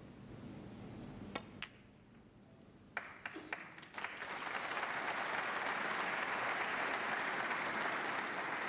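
A few sharp clicks of snooker balls being struck and colliding. About four seconds in, the crowd breaks into steady applause, which is the loudest sound.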